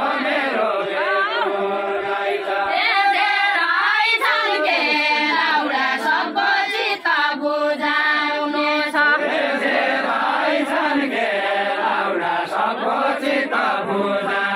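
A group of dancers singing a Deuda folk song together, a chanted sung verse carried by many voices at once.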